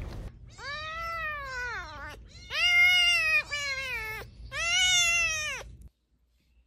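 Very young kitten mewing: three long, high mews, each rising and then falling in pitch.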